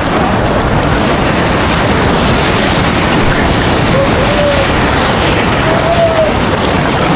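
Sea waves surging and crashing into a natural rock pool: a loud, steady rush of churning water.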